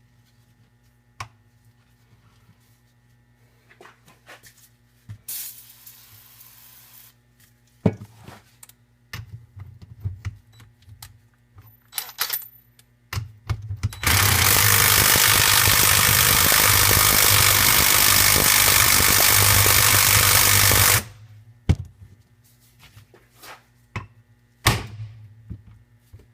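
A small 3/8-inch DeWalt cordless power tool runs hard for about seven seconds without a break, working to free a stuck nut on a small engine. Before it, tools clink and knock, with a short hiss.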